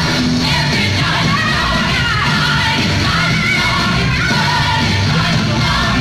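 Loud music with singing from a stage performance, filling the hall without a break.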